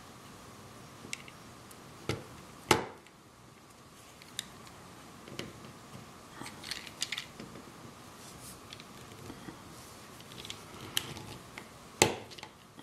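Plastic snap-fit clips of an MK808B Android mini-PC stick's case clicking as a small screwdriver pries the two halves apart along the seam. Two loud snaps, about three seconds in and near the end, with lighter clicks and scrapes of the tool between.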